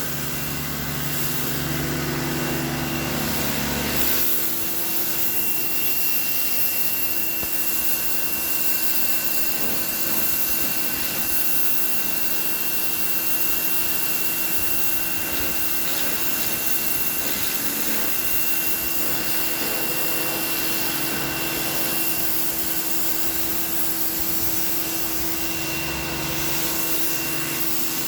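Stihl pressure washer running steadily, its motor whine over a hiss. About four seconds in the low hum drops away and a steady high-pitched whine sets in, running on to near the end.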